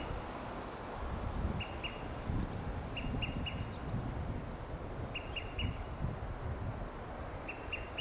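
Olive-sided flycatcher calling its sharp pip in quick runs of three, pip-pip-pip, four times, the first run only two pips. A steady low background rumble runs underneath.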